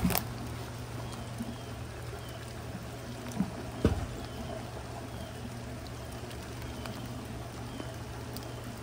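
Muddy floodwater pouring steadily into the inlet of a corrugated culvert pipe. A few dull knocks come near the start and about four seconds in.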